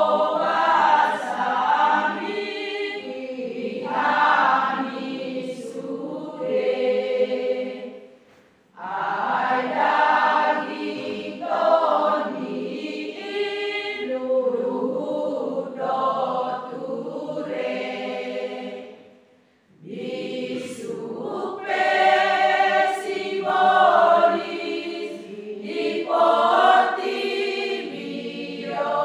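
Large women's choir singing a hymn, in long sung phrases broken by two short pauses, about a third and two thirds of the way through.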